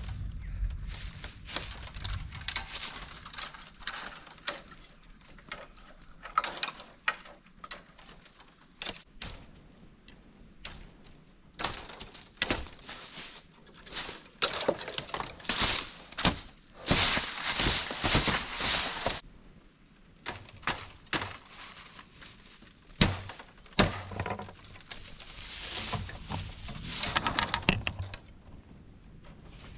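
Dry leaves and bamboo debris being cleared by hand: irregular rustling, crunching and sharp snapping cracks, in bursts that are densest in the middle. A steady high whine runs through the first nine seconds, then stops.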